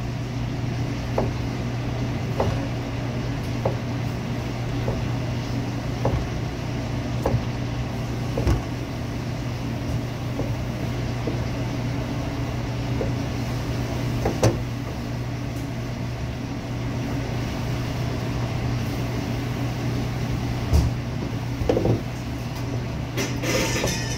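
Knife slicing through a cooked pork loin on a cutting board, the blade tapping the board at each cut, about once a second at first, then more sparsely. A steady low hum runs underneath.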